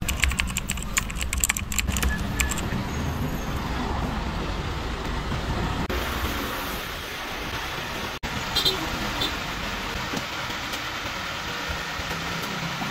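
Street ambience of road traffic, a steady rumble and hiss of motor vehicles. A run of sharp clicks comes in the first two seconds, and the sound drops out for an instant about eight seconds in.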